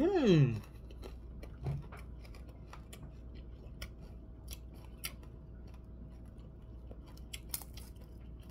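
A man's short 'mmm' of relish, rising then falling in pitch, while eating rice and fish with his fingers. After it come soft chewing and small wet clicks of lip-smacking and finger-licking, spaced out, over a faint steady hum.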